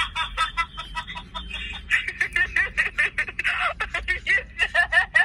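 A woman laughing hard: a rapid, unbroken string of high-pitched ha-ha sounds, several a second.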